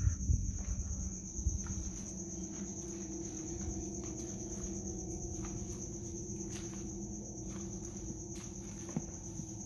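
Crickets chirring in one steady high-pitched drone, over a low steady hum, with a few soft thumps in the first couple of seconds.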